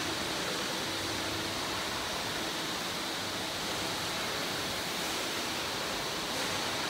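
Steady running noise of a metal-decorating print line in a machine hall: an even rush with a faint high whine over it.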